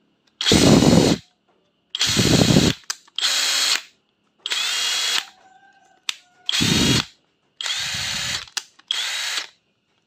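Makita 14.4V brushless cordless impact driver run unloaded in seven short trigger pulls, each about half a second to a second long, some louder than others, as it is switched between its speed settings.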